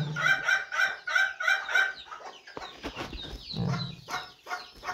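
Domestic hens clucking: a quick, evenly spaced run of clucks for about the first two seconds, then scattered, more uneven clucks.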